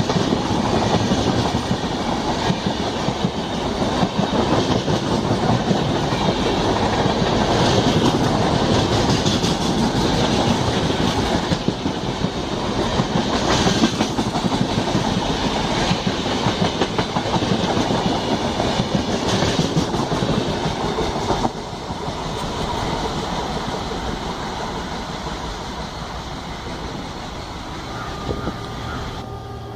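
Passenger train coaches running past at speed, wheels clattering over the rail joints in a continuous rattle. The noise drops suddenly about 21 seconds in and then fades as the train goes by.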